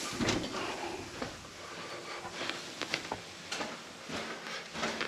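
Footsteps with scattered small clicks and knocks, faint and irregular, over a steady low hiss.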